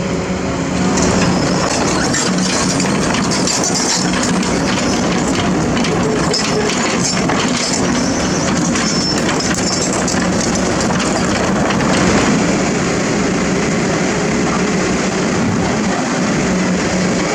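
Diesel engine of a heavy crawler machine running under load, with its steel tracks clanking and clattering steadily as it moves.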